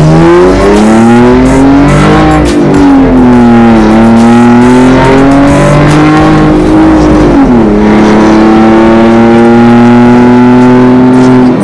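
Porsche Cayenne S E-Hybrid's V6 with a catless downpipe and valvetronic catback exhaust, heard from inside the cabin while accelerating. The engine note climbs, eases, climbs again, then drops sharply at an upshift about seven and a half seconds in and holds a steady drone.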